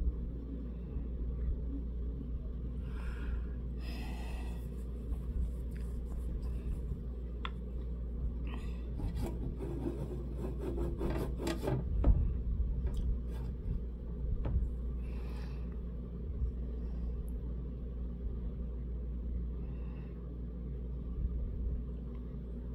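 Soft intermittent rubbing and scraping of a makeup brush and palette being worked, over a steady low hum. A louder knock comes about twelve seconds in.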